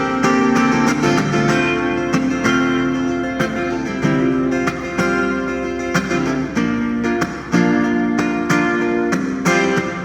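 Acoustic guitar playing the instrumental break of a Mandarin pop ballad, a run of plucked and strummed chords with no singing.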